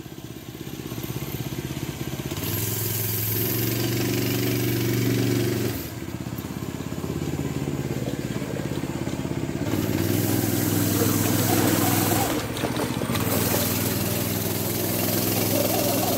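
Go-kart's small engine running as the kart drives around, getting louder over the first few seconds. It eases off briefly about six seconds in and again about twelve seconds in, then picks back up.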